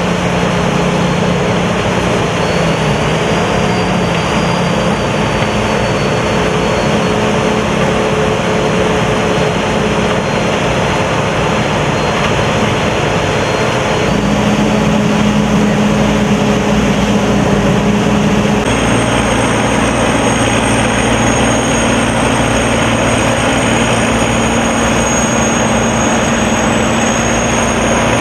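Corn combine harvester running steadily under load, its diesel engine humming under the noise of the harvesting and threshing machinery. The pitch and mix of the sound change abruptly twice, about 14 and 19 seconds in.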